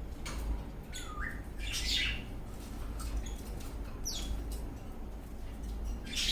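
Eastern rosella parrot giving a few short, separate calls: a brief rising whistle about a second in, a chirp just after, a quick falling squeak about four seconds in, and a louder chirp at the end, over a steady low hum.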